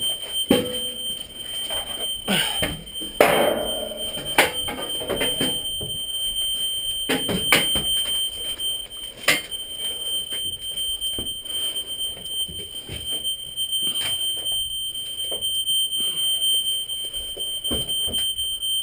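A smoke alarm holding one steady high-pitched tone, with scattered knocks, thumps and rustling of gear close by.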